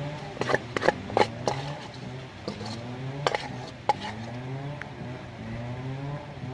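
Raw frogs and fingers clinking and knocking against an aluminium bowl as they are mixed with spice paste by hand: a cluster of sharp clinks in the first second and a half, and two more around three to four seconds in. A steady low hum that rises in pitch over and over runs underneath.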